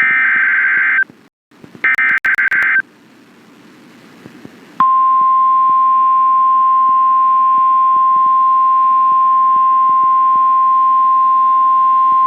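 NOAA Weather Radio emergency alert: two short bursts of screechy, warbling SAME digital header data, each about a second long, then after a pause the single steady warning-alarm tone begins about five seconds in and holds. Together they signal an incoming tornado warning.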